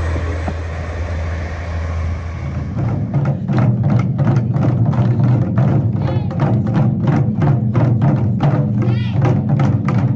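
A KiHa 47 diesel railcar's engine runs with a steady low hum. About three seconds in, taiko drums take over, played together by a children's group in a fast, steady rhythm of strikes.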